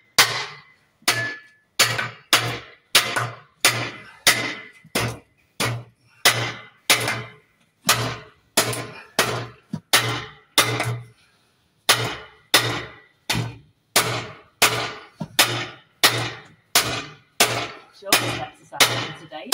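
A hammer striking the metal frame of an exercise machine over and over, steady at about two blows a second, each blow a sharp clang with a brief ring, with one short pause about halfway through: the frame is being knocked apart for scrap.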